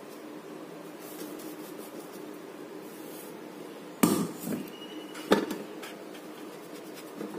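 Ground moong dal flour being sifted through a sieve over a steel bowl: a faint rustle from the shaking, then a handful of sharp metallic knocks, the loudest about four and five seconds in, as the sieve is knocked against the bowl.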